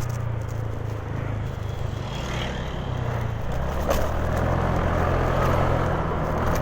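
Honda Genio scooter's small single-cylinder engine running while riding, under a steady rush of noise. The engine note changes about four seconds in, with a brief knock at the same moment.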